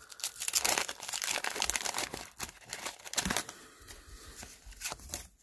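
Paper wrapper of a hockey card pack crinkling and tearing as it is opened, busiest in the first three seconds, then lighter crackles.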